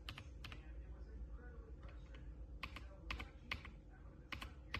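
Keystrokes on a mechanical keyboard, sharp separate clicks: a few at the start, a pause of about two seconds, then a run of about half a dozen.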